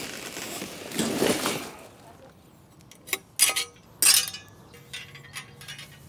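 Cardboard carton rustling and scraping as it is opened. Then metal cage frames and wire panels clink and clank sharply several times as they are pulled out of the box.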